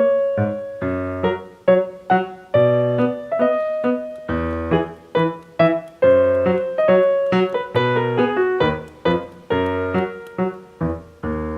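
Background piano music: a melody of struck notes over a bass line, each note decaying after it is played.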